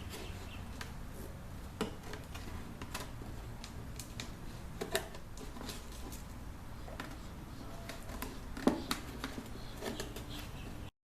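Scattered light clicks and knocks from handling tools and wooden parts, over a steady low hum. One sharper knock comes near the end, and the sound cuts off just before the end.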